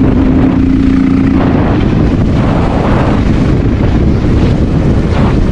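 Heavy wind buffeting the microphone, loud and rushing, over a Honda XR650L dual-sport motorcycle's single-cylinder engine. The engine's steady hum drops away about a second and a half in, leaving mostly wind.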